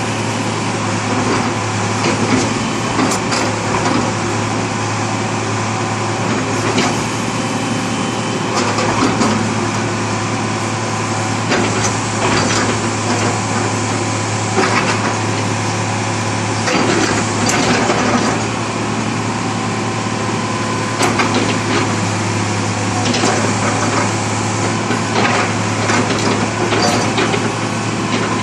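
Hitachi UH045-7 hydraulic excavator's diesel engine running steadily with a constant low hum, with scattered knocks and clanks throughout.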